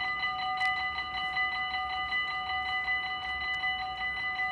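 Dutch level-crossing warning bell ringing fast and evenly, about five strikes a second, as the red lights flash and the barriers come down: the crossing is closing for an approaching train.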